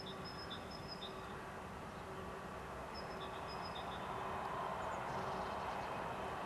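A CFL Class 2000 electric multiple unit approaching, its running noise and a steady electric hum growing louder over the second half. Small birds chirp twice, in short trills.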